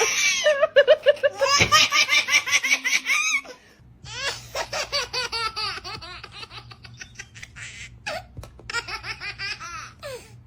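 A baby laughing in quick, repeated belly-laugh giggles, loud at first. After a brief break about three and a half seconds in, the giggles go on more quietly over a faint steady hum.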